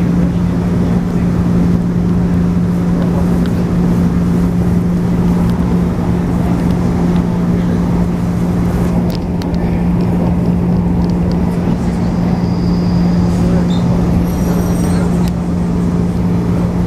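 Running sound of a JR 113 series electric train from inside the car: its MT54 traction motors and gears hum at a steady pitch over the wheel-and-rail rumble, at an even speed. A few brief high-pitched squeals sound near the middle.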